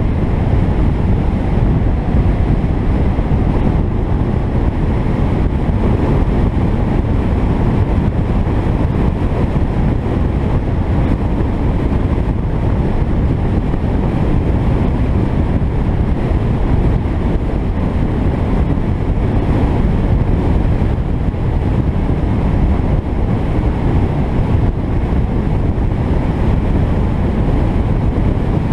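Steady wind rush buffeting the microphone over the road and engine noise of an Alfa Romeo 33 driving along at a steady speed.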